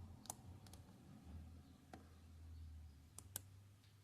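Near silence broken by about five faint, sharp clicks of a computer mouse as the write to the ECU is started.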